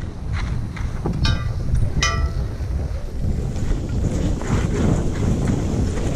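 Wind buffeting a skier's camera microphone, a steady low rush that goes on without pause. Two short pitched calls cut through it, about a second in and again about two seconds in.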